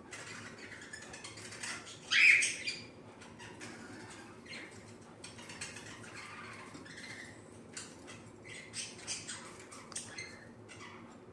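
Cockatiel calling: one loud squawk about two seconds in, then scattered short chirps throughout.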